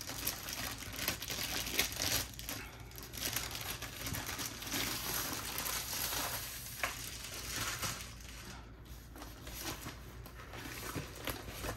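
Clear plastic wrap crinkling and rustling in scattered crackles as it is pulled off a rolled diamond painting canvas. Near the end the stiff canvas rustles as it is unrolled.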